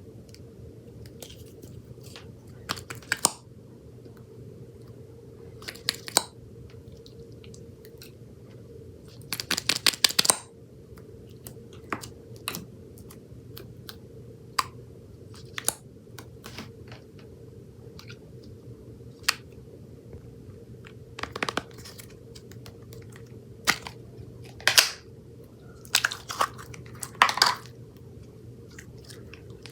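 Slime being squeezed and poked by hand: irregular sticky clicks and pops, with a few short runs of wet crackling, over a faint steady hum.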